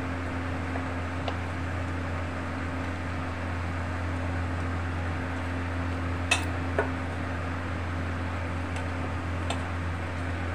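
Chicken pieces being mixed by hand in a stainless-steel bowl of marinade, with two sharp clinks against the bowl about six seconds in, over a steady low hum and hiss.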